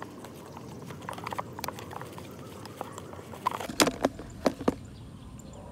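Thin clear plastic bottle crinkling and clicking as it is handled close up, with a few louder sharp clicks about four seconds in.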